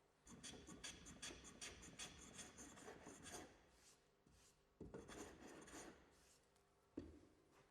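A hand edge tool scrapes across timber in quick, rasping strokes, trimming the waste of a glued-in dovetail repair flush. There are two runs of strokes, then a single sharp knock near the end.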